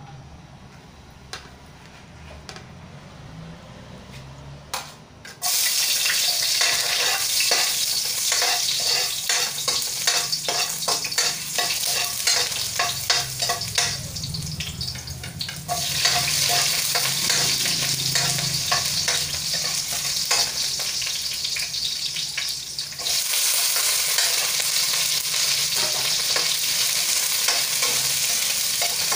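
Sliced onion, garlic and ginger frying in hot oil in a pan: a low hum for about five seconds, then a sudden loud sizzle as they hit the oil, which keeps going with the metal spatula scraping and tapping the pan as they are stirred.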